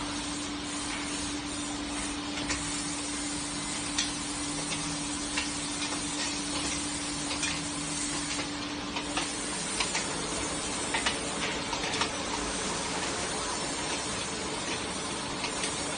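Industrial conveyor washer and dryer line running: a steady hiss of blowing air and spray. A steady hum runs under it and stops about nine or ten seconds in, and light clicks come here and there.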